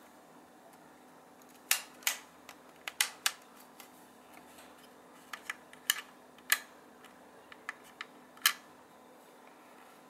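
A dozen or so sharp plastic clicks, irregularly spaced, as the Nobby NB2501 hair dryer's handle switches are worked with its motor off.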